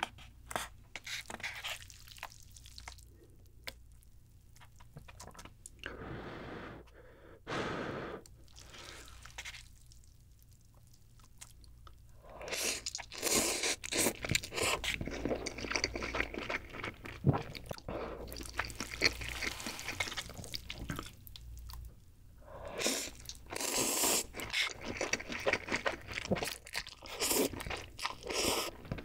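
Close-miked slurping and chewing of instant ramen noodles eaten with chopsticks. The first stretch is quieter, with small clicks and two short slurps. From about twelve seconds in, wet slurps and chews come thick and loud.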